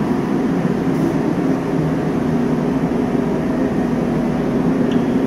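Steady low mechanical hum with a constant low pitch, unchanging throughout.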